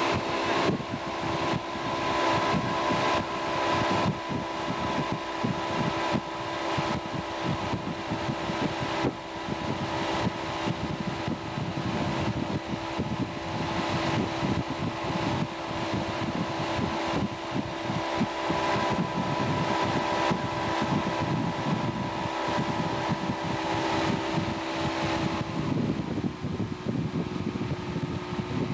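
Motorboat engine running steadily at speed while towing a tube, with wind buffeting the microphone. The engine note shifts slightly about 26 seconds in.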